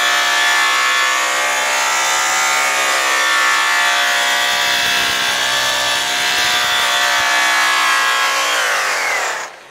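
Electric rotary buffer running steadily at speed against an aluminum fuel tank, cutting with brown Tripoli compound. Near the end it is switched off and its whine falls in pitch as it spins down to a stop.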